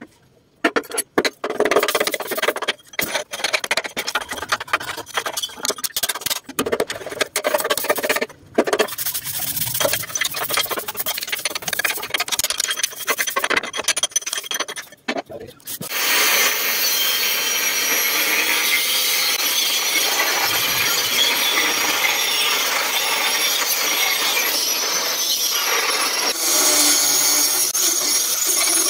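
Quick, irregular scraping strokes of a hand tool working the rusty steel of a truck chassis rail. A little past halfway this gives way to an angle grinder grinding the steel frame, a steady noise with a high whine.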